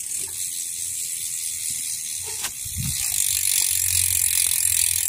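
A BMX rear hub freewheeling as the wheel spins: its pawls ratchet in a fast, even clicking that blends into a buzz and gets a little louder about halfway through.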